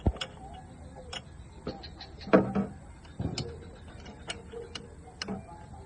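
Irregular sharp clicks and knocks of hand tools handled against metal, the loudest knock about two seconds in.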